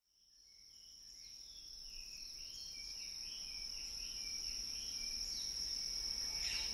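A steady, high-pitched insect trill with scattered short bird calls, fading in from silence.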